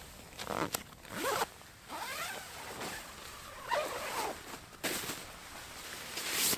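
Zipper on the door of a Naturehike Cloud Peak 2 tent being drawn open in several separate pulls.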